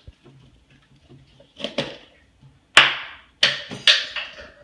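A knife and jar knocking and clattering against a tabletop: about five sharp knocks with short ringing tails, the loudest about three seconds in.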